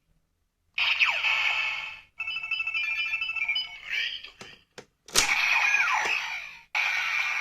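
Kamen Rider Zi-O Ridewatch toy playing its electronic sound effects through a small speaker: a falling sweep, a beeping jingle and a couple of button clicks, then two alike bursts, each ending in a falling tone.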